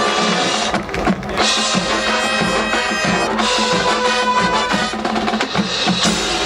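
Marching band playing its show: brass and woodwinds sustaining chords over the drumline's snare and bass drum strikes.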